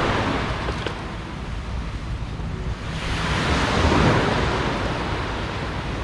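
Sea surf washing on the shore, swelling twice, with wind rumbling on the microphone.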